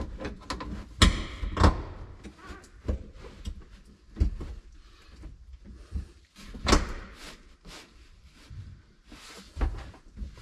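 Silverado's hard plastic centre console being shifted and set onto its floor studs over new carpet: irregular knocks and thuds, the loudest two about a second in, more scattered through to the end.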